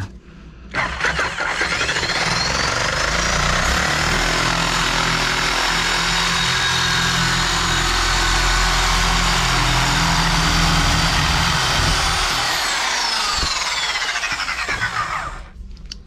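Reciprocating saw cutting through a water pipe. The motor winds up about a second in, runs steadily as the blade saws through the pipe, and winds down near the end.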